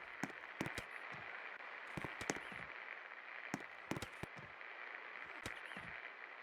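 52-inch Shwapno Premium Elite ceiling fan running, a faint steady whir with sharp clicks that come in small groups every second or two.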